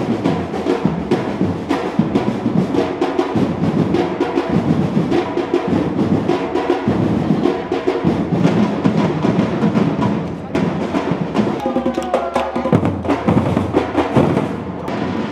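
Percussion music: drums beating with dense, sharp clicking strikes in a steady rhythm.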